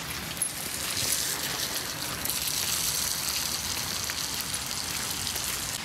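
Steady hiss of falling rain, growing a little stronger about a second in and easing near the end, with a few faint ticks of drops.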